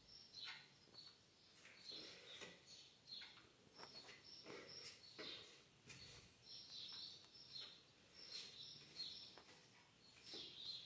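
Near silence: faint scrapes of a metal putty knife spreading filler against a wall, with faint high chirps repeating several times a second.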